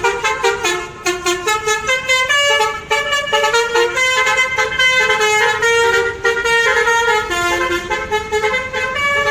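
A bus's telolet horn, a multi-tone musical horn, plays a fast tune of short notes, about three or four a second, with several pitches sounding together.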